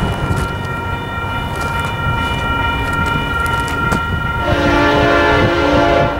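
An approaching train's locomotive air horn sounds one chord blast of about a second and a half, starting about four and a half seconds in. Under it runs the steady ringing of a grade-crossing warning bell.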